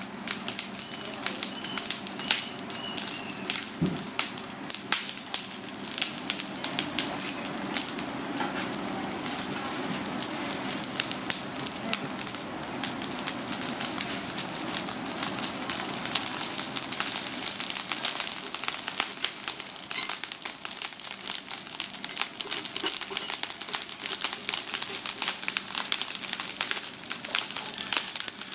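Charcoal grill crackling under a salt-crusted alligator gar, a steady stream of sharp irregular pops and crackles from the burning coals and heated salt crust.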